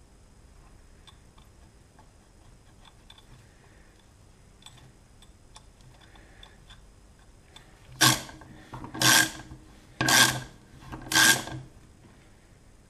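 A socket ratchet tightening a fitting on a scooter brake hub: faint small clicks of parts being handled, then, about eight seconds in, four loud ratcheting strokes about a second apart.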